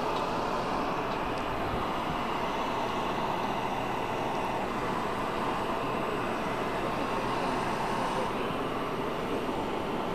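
Parked jet aircraft running on the ground: a steady, even rushing noise with no breaks.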